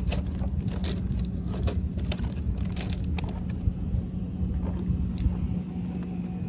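A steady low mechanical hum and rumble with scattered light clicks and rustles.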